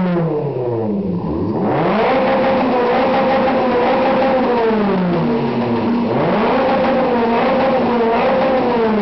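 Modified car engine revved hard through an aftermarket exhaust: the revs drop, climb about a second and a half in, hold high for about three seconds, drop, then climb and hold again before falling away near the end.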